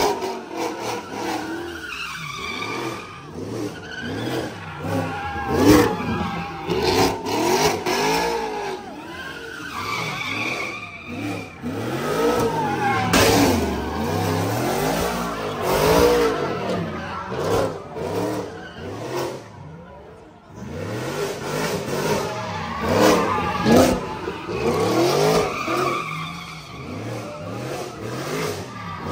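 A car doing donuts: its engine revs up and down over and over while the tyres squeal and skid. The noise drops off briefly about two-thirds through, then picks up again.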